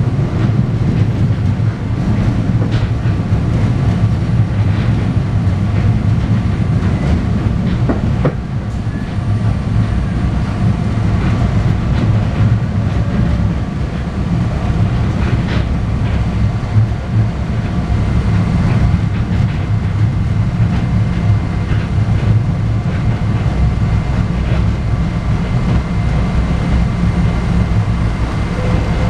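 PATCO Speedline railcar running at speed, heard from inside the car: a steady low rumble with a few sharp wheel clicks over the rails.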